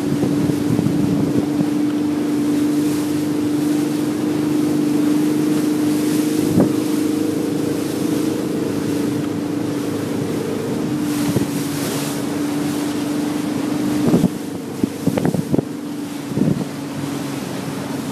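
Motorboat engine running steadily, with wind rushing over the microphone. A few sharp thumps come near the end.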